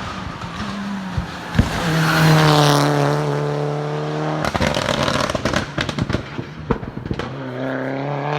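A race car's engine at full throttle climbing a hillclimb course, with two sharp exhaust bangs early on and a run of crackling bangs about halfway through as the throttle comes off, before the engine note pulls again near the end.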